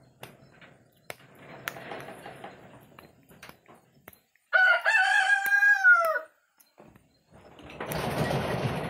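A rooster crows once, about halfway through: a single held call that falls away at its end. Around it, soft rustling and small clicks as a monkey's hands work through hair close to the microphone.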